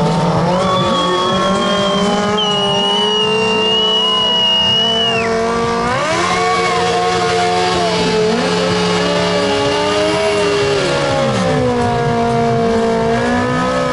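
Racing cars' engines running hard at high revs, several at once. Their pitch holds, then climbs and drops as they accelerate and change gear, and a sharp rise comes about six seconds in.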